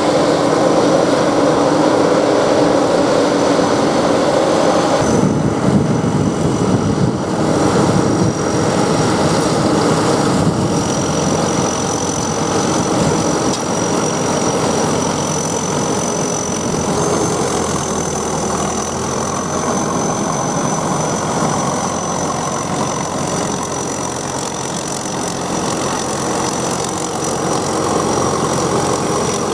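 SAKPATTANA SS100 mini rice combine harvester running steadily, its engine noise even throughout with a thin, steady high-pitched whine above it.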